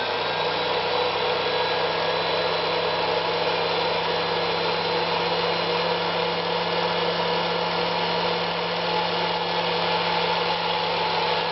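Privileg Super Nutzstich 314 sewing machine's electric motor running steadily while winding a bobbin, with the handwheel released so the needle stays still. An even, smooth hum that sounds very nice.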